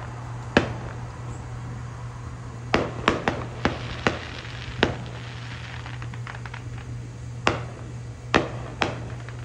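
Fireworks going off at a distance: a series of sharp bangs, several in quick succession about three seconds in, then a spell of crackling, and a few more bangs near the end, over a steady low hum.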